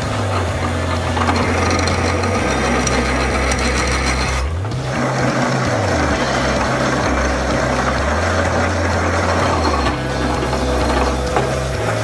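Drill press boring a large hole through a steel plate clamped in a machine vice: a steady motor hum under the scraping of the bit cutting metal, with a brief break about four and a half seconds in.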